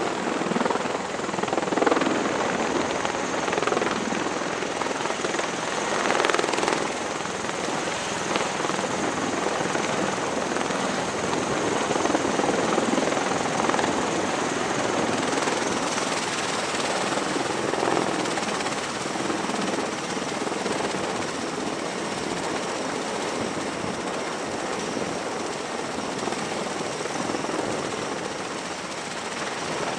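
V-22 Osprey tiltrotors hovering and landing in helicopter mode: a steady, loud rush of rotor and turbine noise with a thin high whine on top, swelling several times.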